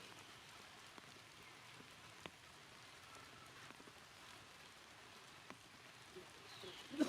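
Faint, steady light rain with scattered ticks of single drops, and a few short, louder sounds just before the end.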